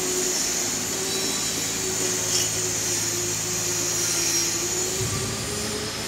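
Steady machine noise, a continuous hum and high hiss with a held tone, with a light clink about two and a half seconds in.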